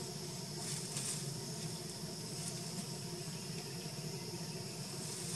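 Forest ambience: a steady high-pitched insect buzz over a low steady hum, with a brief faint rustle about a second in.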